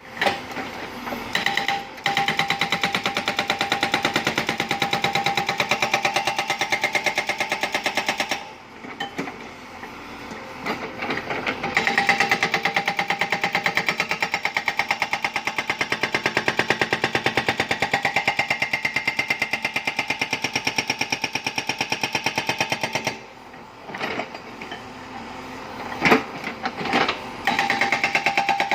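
Hydraulic rock breaker (Tata Hitachi B60) on a backhoe loader hammering rock in a fast, even run of blows. It stops twice for a few seconds, about eight seconds in and again about twenty-three seconds in, then starts hammering again.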